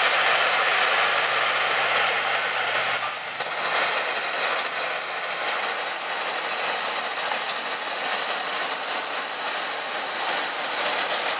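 Homemade jet engine running with a loud rush and a high-pitched turbine whine. The whine drops in pitch about three seconds in, as the engine spools down, then holds steady.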